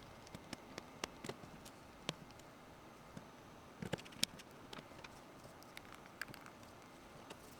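Faint scattered clicks and taps from handling a Nokia 225 phone and its small parts, with a short cluster of louder taps around four seconds in.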